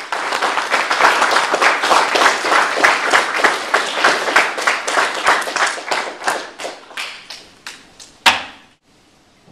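A roomful of people applauding, the claps thinning out about six seconds in and dying away, with one last loud single clap near the end.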